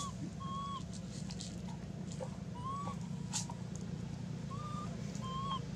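Short, clear pitched animal calls, each about a third of a second long, repeated every second or two over a steady low hum.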